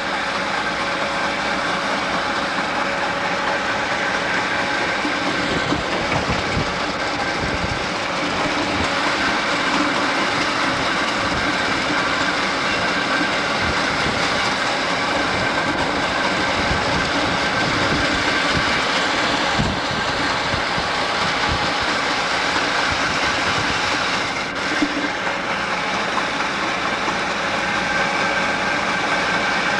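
Several EMD GP9 diesel locomotives (two-stroke 567 engines) run steadily at low speed, with their wheels rolling over the rails. Irregular low thumps come through at intervals, the mark of a flat spot on a locomotive wheel, which is why the train is held to about 25 mph.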